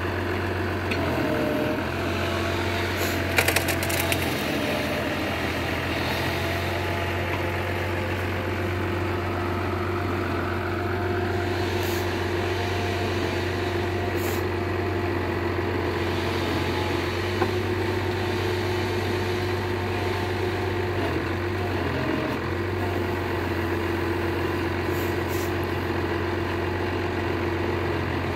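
John Deere 6600 tractor's diesel engine running steadily, with a few sharp knocks about three seconds in and single clicks later on.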